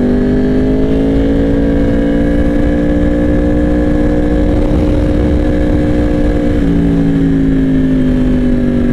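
Yamaha R1's inline-four engine running under way at a steady cruise, with wind rush on the microphone. The engine pitch creeps up gently, steps down once about seven seconds in, then eases lower.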